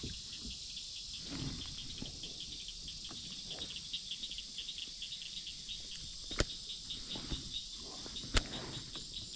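Insect chorus from the pond's surroundings: a steady, high, evenly pulsing trill at about five pulses a second. Two sharp clicks stand out, about six and a half and eight and a half seconds in.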